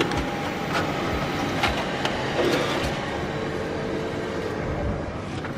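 Large office copier-printer running: a steady mechanical whir with several clicks as it feeds and prints a sheet.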